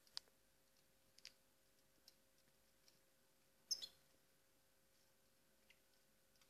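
A few faint, short high clicks and squeaks from European goldfinches feeding, the loudest a little past the middle.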